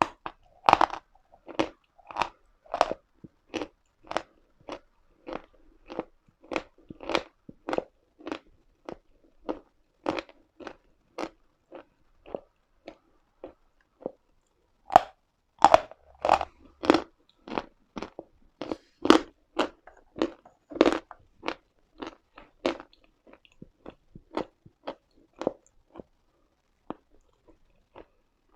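Close-up crunching of a person biting and chewing pieces of Uslada chalk, a run of crisp short crunches about two or three a second, with a few louder bites midway.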